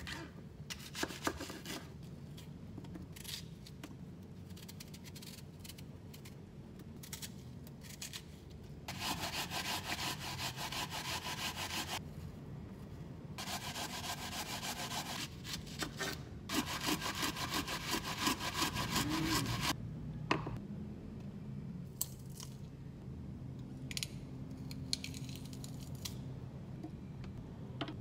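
Asian pear being grated by hand on a plastic grater: a rasping back-and-forth scrub in three runs of a few seconds each. Before it come a few sharp clicks of a knife cutting through the pear onto a cutting board.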